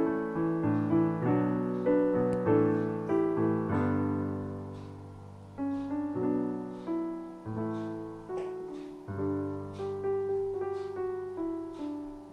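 Background piano music: slow single notes and chords, each struck and fading, with one chord left to die away about four seconds in before the playing resumes.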